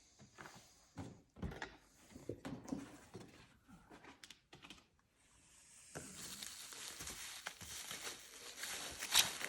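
A package being opened by hand. First come scattered knocks and thumps as the box is handled, then, about halfway through, a steady crinkling and tearing of packing material starts and runs on, loudest near the end.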